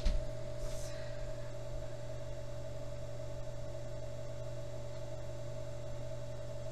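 Electric potter's wheel motor running at a steady speed, a constant hum with a light hiss, as a clay pitcher is shaped on it.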